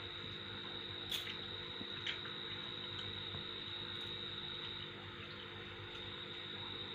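Aquarium water bubbling and trickling steadily as air bubbles rise through the tank, over a low steady hum and a steady high-pitched tone. Two small clicks come about one and two seconds in.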